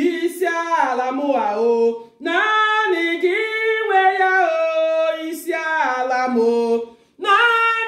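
A single voice singing a worship song unaccompanied, in long held and sliding phrases, with short breaks about two seconds in and near the end.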